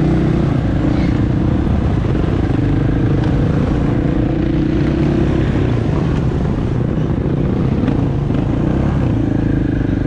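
Dirt bike engines running at cruising speed, led by the steady note of the bike that carries the microphone, with road and wind noise. The engine note eases off about halfway through and picks up again near the end.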